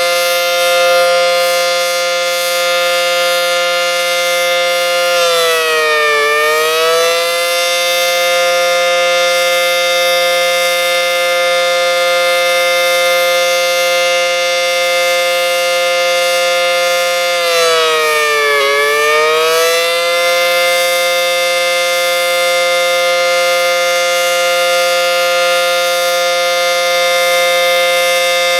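ACA Banshee 115 electromechanical siren sounding at full, steady pitch. Its tone dips briefly and comes back up twice, about six and eighteen seconds in, and begins to dip again at the very end.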